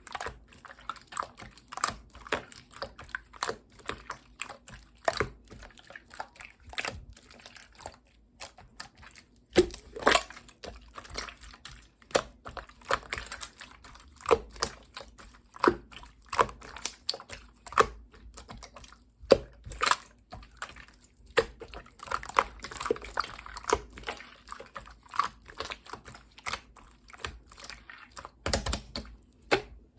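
Gold and green pearl slime being squished and pressed by hand, giving a run of irregular clicks and pops, a few louder ones each second among many small ones.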